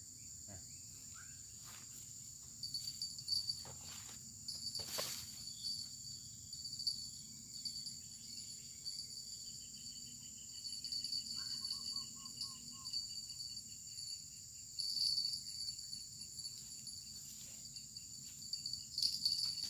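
Steady high-pitched chorus of insects chirring, with a few short knocks and rustles over it.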